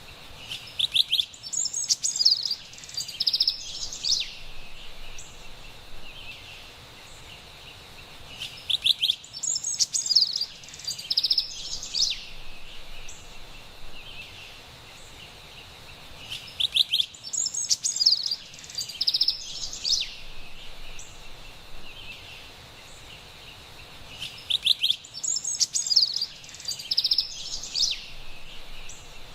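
Carolina wren singing: four bouts of rapid, rolling repeated notes, each about three seconds long, coming about every eight seconds over a faint steady background hiss.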